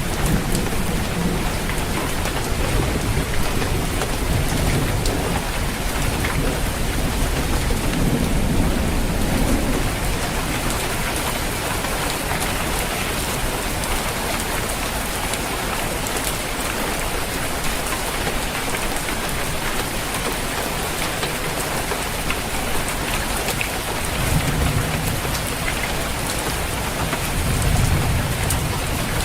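Rain falling steadily on a roof, a constant hiss, with low rolls of thunder rumbling several times: near the start, about a third of the way in, and toward the end.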